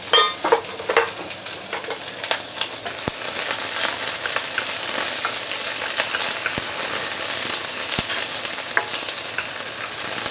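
Mixed vegetables sizzling in hot oil in a wok, stirred and scraped with a wooden spatula, with scattered clicks. A few clatters in the first second as the last pieces land in the pan, and the sizzle grows louder a couple of seconds in.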